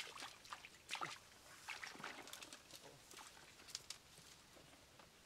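Irregular faint splashes and rustles of someone wading through shallow floodwater among thin stems and grass, with a sharper splash about a second in.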